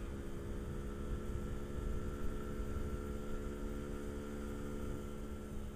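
Yamaha RX-King's single-cylinder two-stroke engine running at a steady speed, its pitch holding level throughout, over a low rumble.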